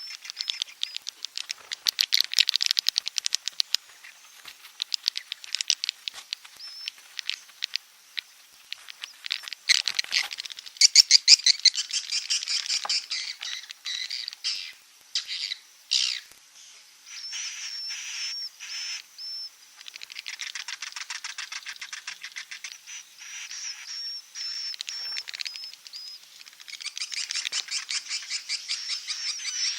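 Edible-nest swiftlet calls of the kind played as a lure sound for swiftlet houses: rapid trains of clicks and buzzy chattering trills mixed with short high chirps. The calls pause briefly and come in swells.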